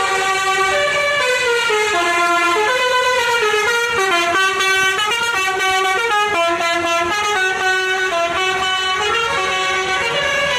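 Musical multi-tone bus air horn (telolet horn) playing a melody of quick stepping notes, several pitches sounding together, without a break.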